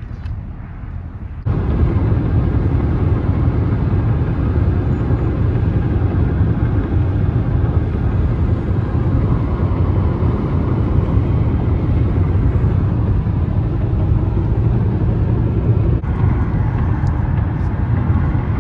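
Steady road and wind noise inside a Hyundai Sonata's cabin at highway speed, a loud low rumble of tyres and air. It cuts in suddenly about a second and a half in, after a quieter stretch.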